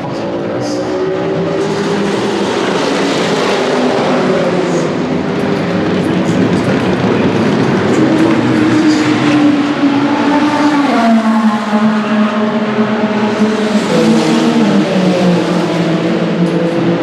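LMGT3 race car engines at racing speed, getting louder at first, with the engine note dropping in steps several times as gears change.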